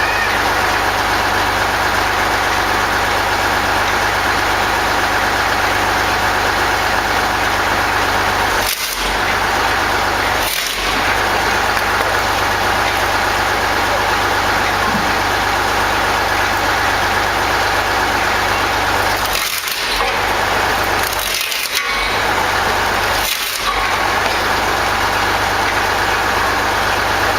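Engine of a homemade wood processor running steadily, briefly dipping about five times.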